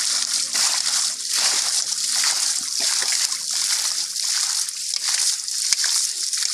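Feet and hands sloshing and splashing through shallow, muddy water, in short repeated splashes about every half second, over a steady hiss.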